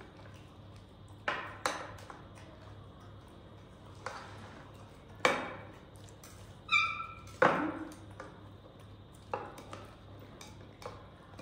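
Scattered sharp knocks and clinks of a spoon and dishes during a rice feeding, seven or so in all. About two-thirds of the way through there is one short high-pitched ping.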